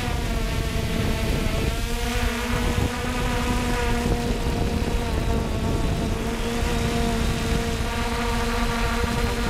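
3DR Solo quadcopter's electric motors and propellers whining steadily, picked up by its onboard GoPro over a low rumble. The pitch wavers a little as the drone manoeuvres.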